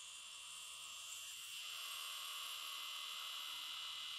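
Steady buzzing chorus of insects in grass, stepping up to a louder, higher buzz about a second and a half in.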